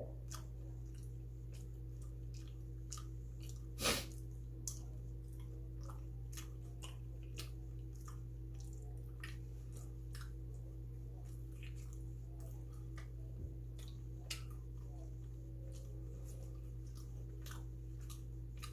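A person chewing bungeoppang, the fish-shaped pastry, close to the microphone: scattered soft wet chewing clicks over a steady low electrical hum, with one louder brief noise about four seconds in.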